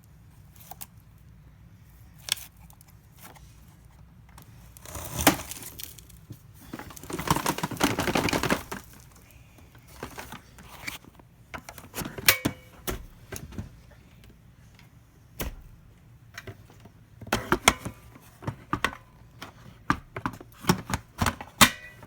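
Irregular clicks, taps and crinkling of objects being handled, with a longer rustling stretch about a quarter of the way in; no vacuum cleaner is running.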